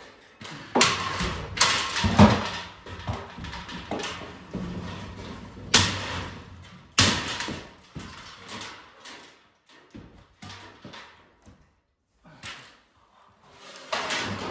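Demolition clatter: material being pried and pulled loose and dropping, with a string of sharp knocks and bangs in the first seven seconds that thin out to a few softer knocks, with a brief near-quiet gap near the end.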